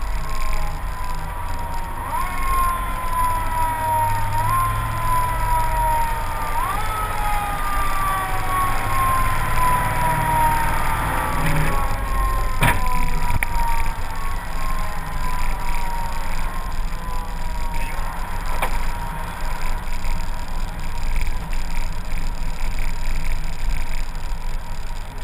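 Fire truck siren whose pitch jumps up three times in the first seven seconds and slides slowly down between, fading out by about two-thirds of the way through. A vehicle engine runs steadily underneath, with one sharp knock about halfway.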